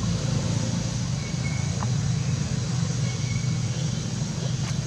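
A steady low rumble of background noise, with two faint brief high chirps about a second and three seconds in.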